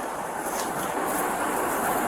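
Steady rushing noise of a vehicle in motion, even throughout with no distinct events.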